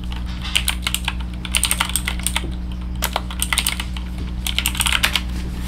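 Typing on a Zeus G61 budget mechanical keyboard: a quick, irregular run of keystroke clicks with many keys a second, starting about half a second in.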